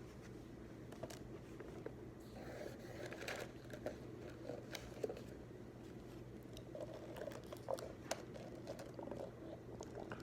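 Faint desk sounds of studying: paper rustling about two seconds in, then scattered light taps and clicks of pens and stationery, over a steady low room hum.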